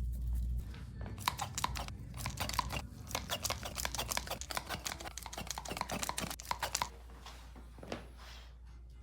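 A rapid, irregular run of crackling clicks and pops, several a second, from joints cracking during a chiropractic adjustment. It starts about a second in and dies away about seven seconds in.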